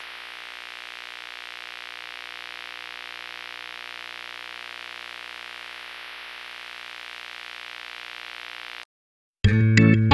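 Steady electronic static hiss over a faint low hum, cutting off sharply about nine seconds in. After a brief silence, loud music with electric guitar and bass begins near the end.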